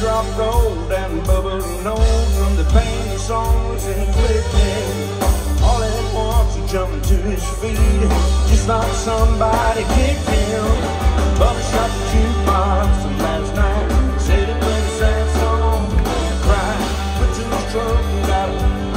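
Live country band playing an upbeat song through a PA, with electric guitar, bass, a steady drum beat and a lead vocal.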